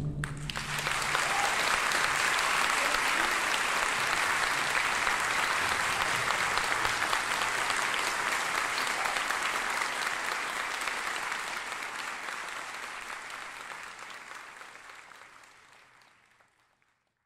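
Audience applauding in a concert hall as the orchestra's final chord dies away. The applause swells within the first second, holds steady, then fades out over the last few seconds.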